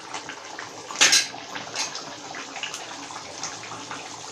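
Egg masala curry bubbling at a simmer in a kadhai over a lit gas burner, a steady wet bubbling full of small pops. About a second in a metal spoon clinks sharply against the pan.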